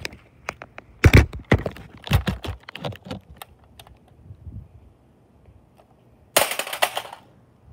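A run of irregular knocks and clicks, then about six seconds in a plastic Buzzbee toy blaster hits the concrete with a sharp, short clattering crash.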